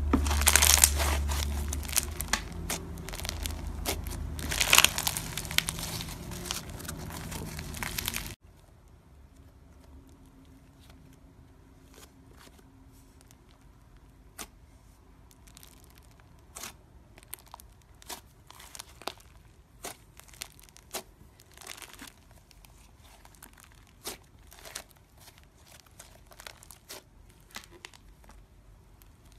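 Yellow slime full of small foam beads squeezed between the fingers, a dense crackling and popping that stops suddenly about eight seconds in. Then white fluffy slime is pressed and folded by hand, giving faint, scattered sticky clicks and pops.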